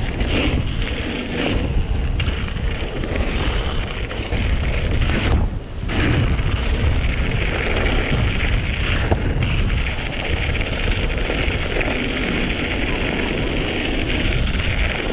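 Wind buffeting an action camera's microphone during a mountain-bike ride, a continuous rushing rumble with a few knocks from the bike on the trail. It drops out briefly about five and a half seconds in.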